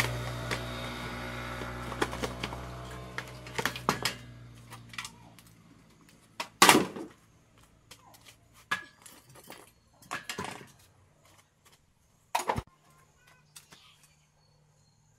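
A steady machine hum fades away over the first few seconds, then scattered metallic clanks and knocks of tools and parts being handled, the loudest about six and a half seconds in.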